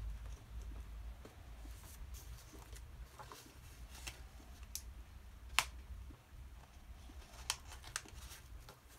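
Small handling sounds at a painting desk: scattered light clicks and taps as hands move over paper and desk clutter, the sharpest about halfway through and two more near the end, over a steady low hum.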